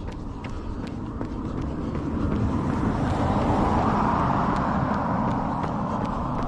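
A passing car, its engine and tyre noise swelling to a peak about halfway through and then fading, over a runner's steady footfalls at about two and a half steps a second.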